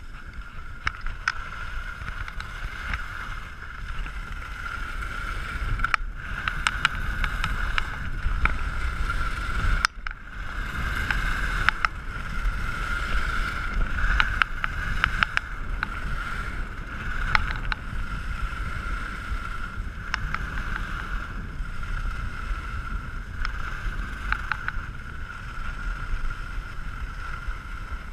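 Skis sliding and scraping over packed snow during a downhill run, with wind rumbling on the camera's microphone and scattered sharp clicks.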